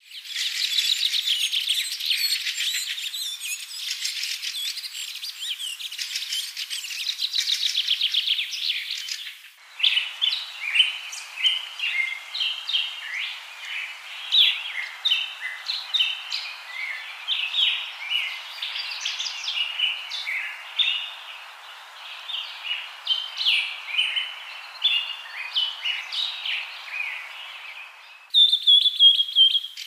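Small birds chirping in a busy chorus of short, high calls. The texture changes abruptly twice: a dense rapid trilling gives way about nine seconds in to scattered separate chirps, and a clear high trill takes over near the end.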